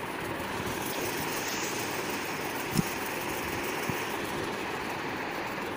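Steady rushing background noise, with a sharp click nearly three seconds in and a fainter click about a second later.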